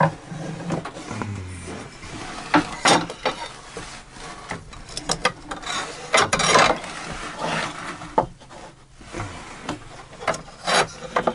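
Wooden parts of a homemade table saw rubbing, scraping and knocking as the circular saw is tilted on its wooden trunnions by hand, with scattered clicks.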